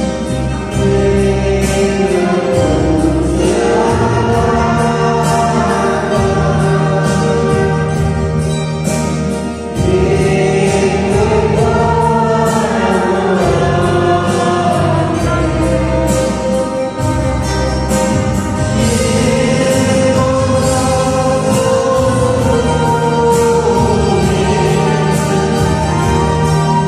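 A choir singing over instrumental music with a steady beat.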